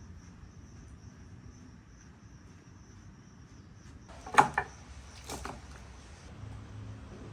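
Steady high-pitched insect chirring, like crickets, with a few sharp knocks or clatters, the loudest a little after four seconds in.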